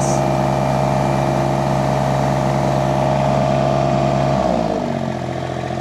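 Mini skid steer engine running at high revs with a steady tone, then about four and a half seconds in the revs drop and it settles at a lower speed.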